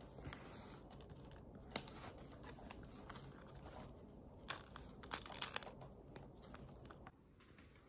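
Banana flower bracts being peeled and torn apart by hand: faint crinkling and tearing with scattered crisp snaps, and a cluster of louder snaps about four and a half to five and a half seconds in.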